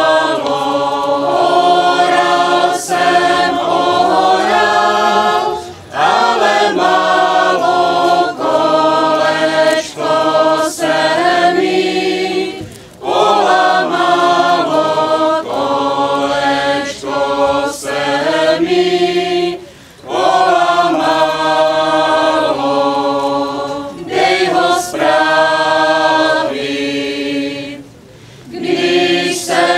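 A group of men and women singing a song together in phrases, with a short break between phrases about every seven seconds.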